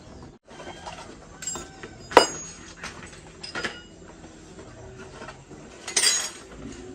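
Metal tools and engine parts clinking and knocking against each other as they are handled, with one sharp knock about two seconds in and a ringing clink near the end.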